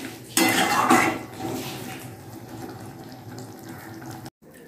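A metal spatula stirring and scraping thick potato curry around a steel kadai. It is loudest for about a second near the start, then quieter, and breaks off suddenly near the end.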